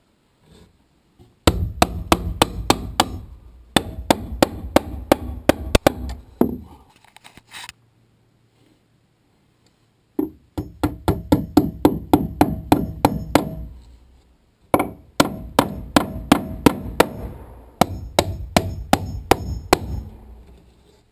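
Hammer driving nails overhead into 2x4 purlins through their metal clips, in quick runs of sharp strikes about four to five a second, with a pause of a few seconds in the middle.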